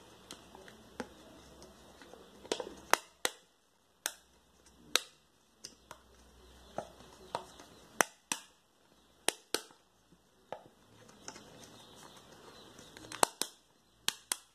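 Sharp, irregular plastic clicks and pops from a clear round plastic piece being pressed and turned in the hands, roughly one or two a second.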